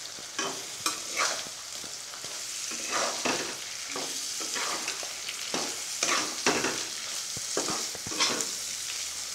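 Dry fish frying in a wet onion-and-spice masala in a kadai, sizzling steadily, while a metal spatula scrapes and knocks against the pan in irregular strokes as the fish is stirred and turned.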